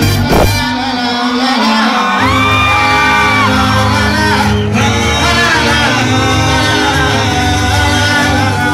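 Live band music with singing, and people in the crowd nearby singing along and shouting, echoing in a large hall.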